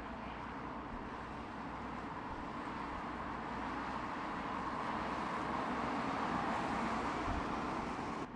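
A vehicle running steadily, its noise swelling louder over a few seconds and then cutting off suddenly near the end.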